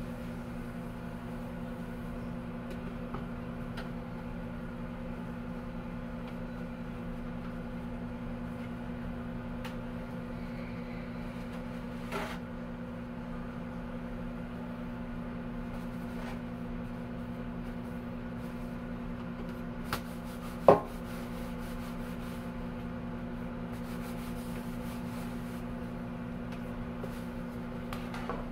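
Microwave oven running with a steady hum. A few light clicks and one sharp knock about two-thirds of the way through come from handling in the kitchen.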